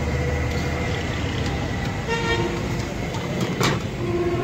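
Road traffic: engines running with a vehicle horn tooting briefly about two seconds in and again near the end, and a single sharp clack between them.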